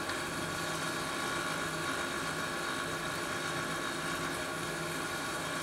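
A steady mechanical hum with several held tones, even and unbroken.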